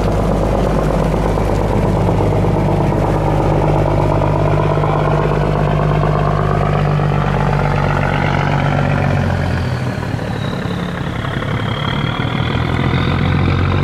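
Large diesel engine of a loaded cargo barge running steadily as the barge passes close by, a deep exhaust note over the wash of water along the hull. The engine sound drops a little about ten seconds in.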